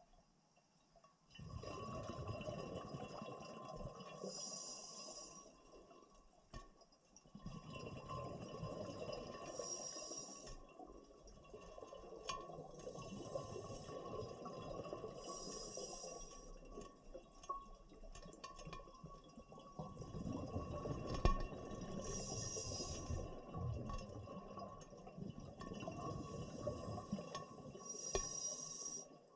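Scuba diver breathing through a regulator underwater: a short hissing inhalation about every six seconds, with long rumbling streams of exhaled bubbles between.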